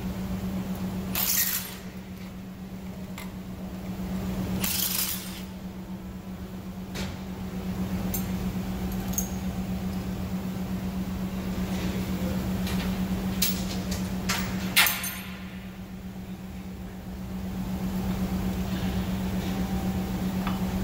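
Metal tools and engine parts clinking and scraping now and then while an engine is being taken apart, over a steady low hum.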